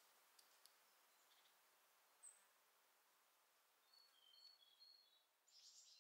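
Near silence: faint outdoor ambience with a few short, faint bird chirps about four to five seconds in.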